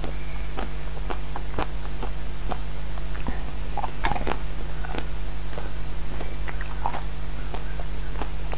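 Close-miked biting and chewing of a chocolate-coated ice cream bar and frozen sweets: a run of small, sharp crunching clicks as the frozen coating breaks, with a louder cluster at a bite about four seconds in. A steady low hum runs underneath.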